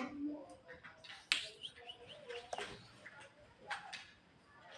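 Pet jalak (starling) making a scattered series of sharp clicks and short chirps, with a few brief gliding notes.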